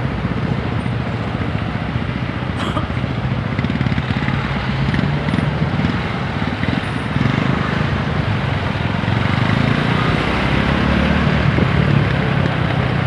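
TVS Apache 160 4V's single-cylinder engine running while riding, its note shifting a little with the throttle, over a steady rush of wind and road noise.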